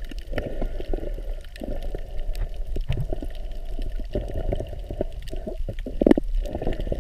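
Muffled underwater water noise as heard by a camera held under the surface: uneven sloshing and gurgling, dotted with many small clicks and crackles, and a louder surge about six seconds in.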